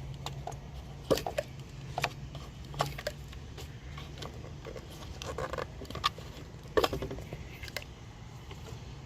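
Scattered sharp plastic clicks and knocks of ignition coil packs being popped up and pulled out of the spark plug wells of a 2017 Hyundai Elantra engine, over a steady low hum.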